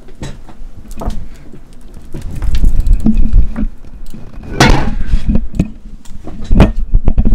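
Bumps, rustles and clicks of the microphone being handled, with a heavy low rumble. The loudest knocks come about two and a half seconds in, near five seconds, and again near the end.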